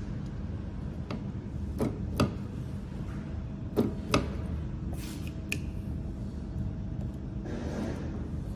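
Battery spot welder firing on a smartphone battery: two pairs of sharp snaps about two seconds apart, with a few lighter clicks after them, over a steady low hum.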